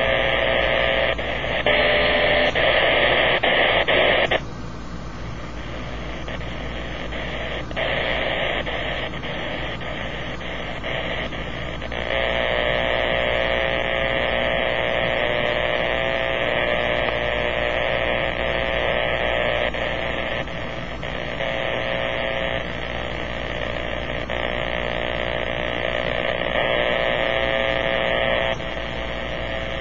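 Power-line interference received by a Kenwood transceiver in AM mode and heard through its speaker: a steady, harsh buzz of static that changes strength as the radio is retuned from 22 MHz up to 50 MHz. It drops about four seconds in and comes back stronger around twelve seconds. The owner links the noise to a damaged lightning arrester on a power pole.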